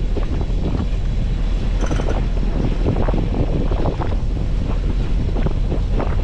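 Wind buffeting the microphone in a loud, uneven rumble, over the steady running of a sailboat's engine as it motors through calm sea.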